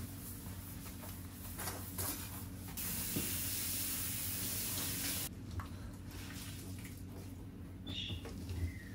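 Cleaning spray hissing, first in a couple of short bursts and then in one steady hiss lasting about two and a half seconds.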